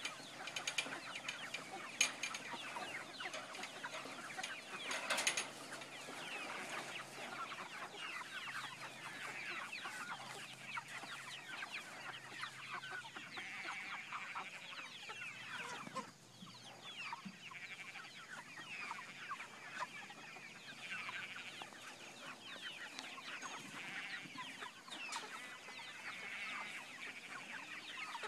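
A large flock of jumbo broiler chickens clucking and chirping continuously, with a few sharp clicks or knocks in the first five seconds.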